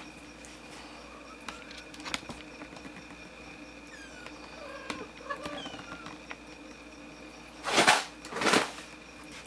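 Faint, thin mews from young kittens about halfway through, among small scattered clicks. Near the end come two short, loud rushes of noise about a second apart.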